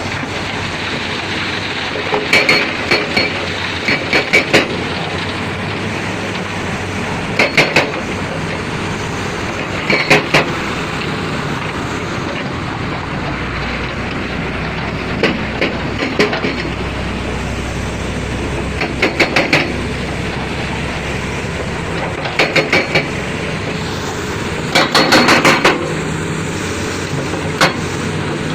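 Heavy construction machinery running steadily, with short clusters of sharp metallic clanks every two to three seconds.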